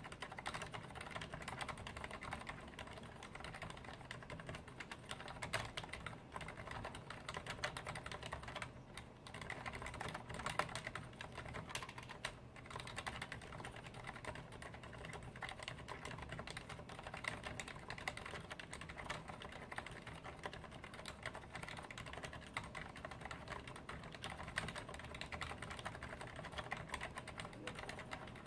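Continuous fast typing on a Leopold FC980M mechanical keyboard with Cherry MX Silent Red switches: a dense stream of damped keystrokes, without the sharp clack of ordinary mechanical switches.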